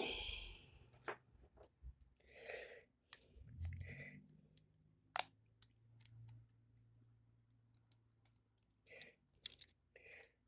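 Scattered small clicks and light knocks of a deadbolt lock mechanism being handled and worked by hand, with one sharper click about five seconds in and a quick run of clicks near the end.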